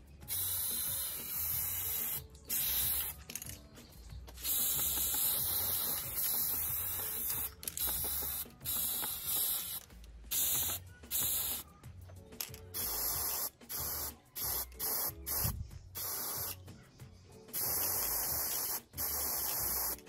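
Spray paint hissing in repeated bursts, some short and some lasting a few seconds, with brief pauses between them, as metal fan parts are given a coat of paint.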